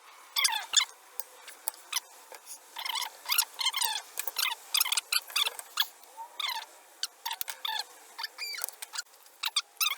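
Speech and handling noise sped up about eight times, heard as rapid, high-pitched, squeaky chipmunk-like chatter in quick short bursts.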